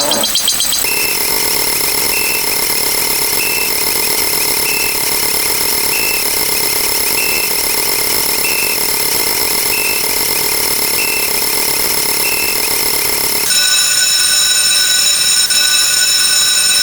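Layered electronic sound effects: several steady high tones held together, with a short beep repeating about every one and a quarter seconds. About 13.5 seconds in the mix switches to a different, louder set of steady tones.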